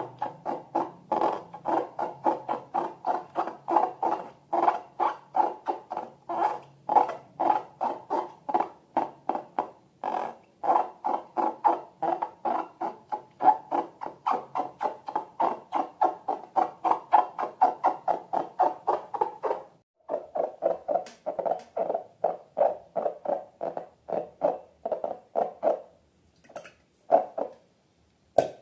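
Rubber balloons squeaking in a fast, regular run, about four squeaks a second. The squeaks drop a little in pitch about twenty seconds in, then turn sparse and stop near the end.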